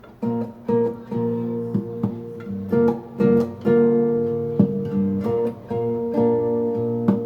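Guitar strumming chords, each strum struck sharply and left ringing, with a few short breaks between chords.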